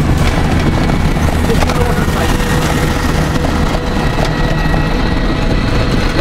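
Steady engine and road noise heard from inside a moving vehicle, heaviest in the low rumble.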